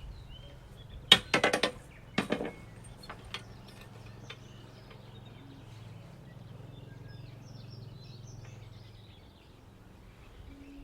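A metal farm gate clanking and rattling in a few sharp knocks with a short ring. A faint low steady hum follows, with birds chirping faintly.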